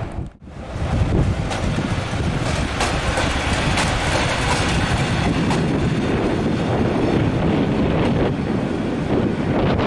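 Train running on the rails: a steady rumble with the clicking of wheels over rail joints. The sound drops out briefly just after the start.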